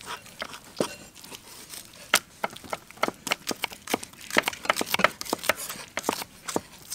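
Kitchen knife dicing an onion on a wooden chopping board: irregular sharp taps of the blade on the board, sparse at first and coming faster in the second half.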